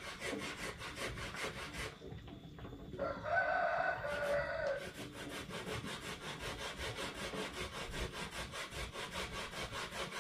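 A spoon stirring in a small metal saucepan, scraping round the pan in quick, even strokes. The stirring stops briefly about two seconds in, and a rooster crows once in that gap before the stirring starts again.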